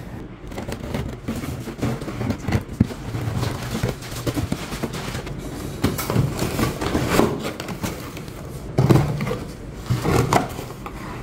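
A flat cardboard box being handled and opened on a table: irregular scraping, rustling and tapping of the cardboard flaps, with a few sharper knocks near the middle and toward the end.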